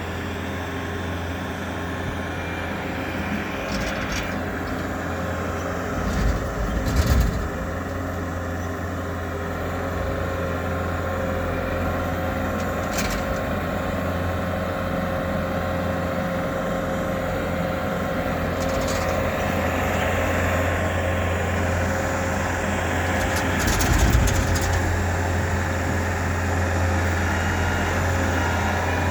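Bobcat T650 skid steer's diesel engine running steadily as it moves a dumpster on its forks. A few short metallic knocks come through, loudest about six to seven seconds in and again near the end.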